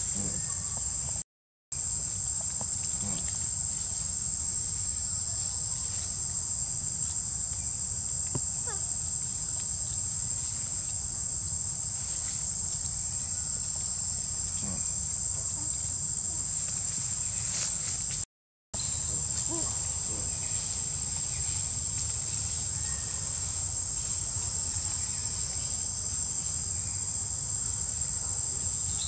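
Steady high-pitched drone of a forest insect chorus, unbroken except for two brief cuts to silence, about one and a half seconds in and again about eighteen seconds in.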